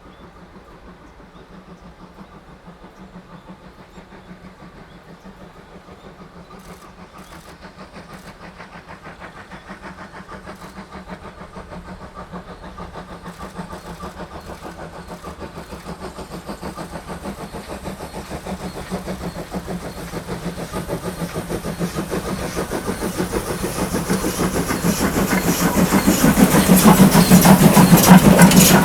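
JNR Class D51 steam locomotive D51 498 approaching under steam, its rapid, regular exhaust beats growing steadily louder until it draws level near the end.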